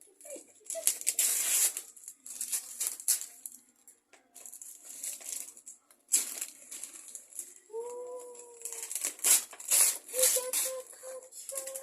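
Wrapping paper on a gift being torn and crumpled in quick irregular bursts of crackling and rustling. There is a short pitched tone about two-thirds through and a few brief chirpy tones near the end.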